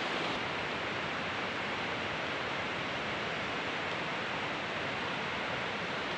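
Steady rush of river water flowing over rocks, an even hiss-like noise that does not change.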